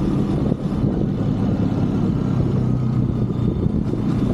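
A 125cc Brixton motorbike's single-cylinder four-stroke engine running at a fairly steady speed while riding, with a brief dip in level about half a second in.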